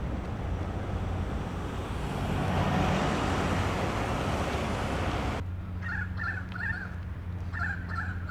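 Outdoor road noise: a vehicle passing, swelling to its loudest about three seconds in and then fading. A little over five seconds in it cuts off abruptly to a quieter steady low hum with a few short chirps.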